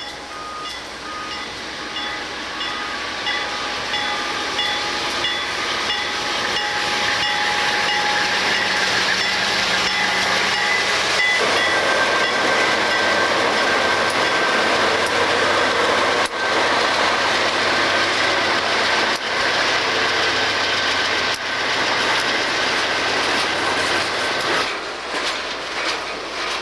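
Train passing on the Conrail line, wheels on rail making a steady loud rumble with a high squeal. A grade-crossing bell dings about twice a second for roughly the first ten seconds.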